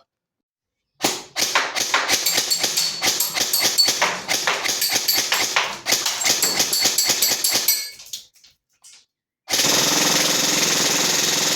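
Custom airsoft M4 electric gun with a 22K motor and hi-speed gearbox firing on full auto: a fast mechanical rattle of shots starting about a second in and lasting about seven seconds, then after a brief pause a second, denser continuous burst near the end.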